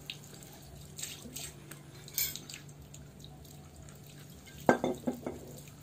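Thinner being poured from a glass bottle onto a wet, soapy jersey. Faint dripping and wet handling give way, near the end, to a quick run of four or five sharp splashing glugs.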